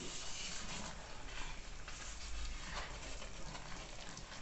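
Wooden spoon stirring and scraping a thick chicken filling in a stainless steel pot, in irregular strokes about twice a second. The filling has thickened with flour and is nearly done, coming away from the bottom of the pot.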